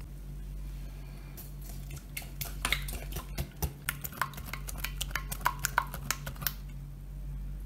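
A hand whisk beating eggs and vegetable oil in a glass mixing bowl, its wires clicking and tapping quickly against the glass. The clicking starts a little over a second in and stops about a second before the end.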